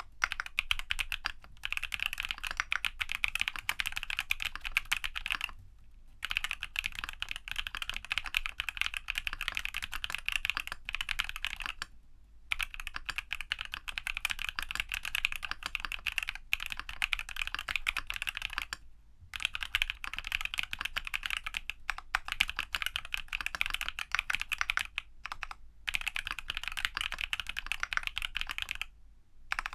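Continuous fast typing on a Geon F1-8K custom mechanical keyboard with lubed TTC Holy Panda tactile switches and PBT keycaps; the brass-reinforced case is foam-dampened. Rapid clacking keystrokes, broken by a few brief pauses.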